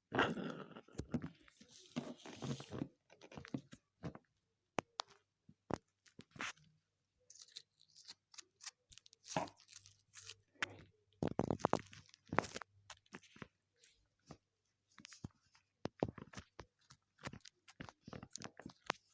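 Homemade slime pressed and squished right on the microphone, giving irregular wet, sticky clicks and crackles. The clicking comes in a dense cluster at the start and again about two-thirds of the way through.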